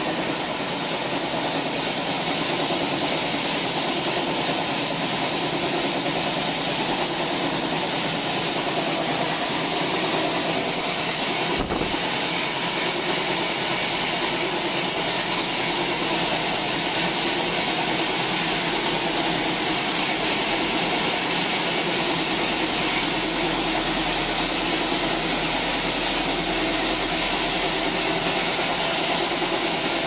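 Horizontal band sawmill running, its band blade and belt-driven wheels making a steady mechanical noise with a high whine. There is a brief click about twelve seconds in.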